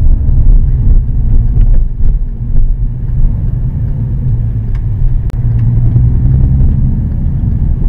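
Steady low rumble of road and engine noise heard inside a Volkswagen sedan's cabin while it drives along.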